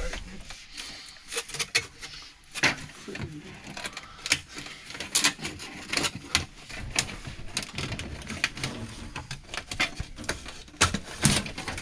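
Flexible foil dryer vent duct crinkling and crackling in irregular clicks as it is pushed and worked onto the vent fitting.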